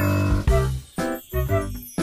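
Background music: pitched notes over a bass line, a new note about every half second.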